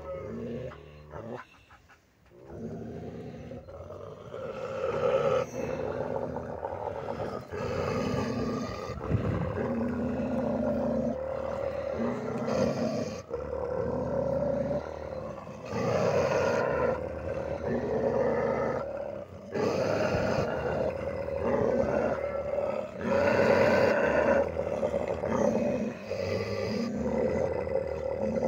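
Maremma sheepdogs growling at each other through a wire fence: long growls one after another with short breaks between them, starting about two seconds in.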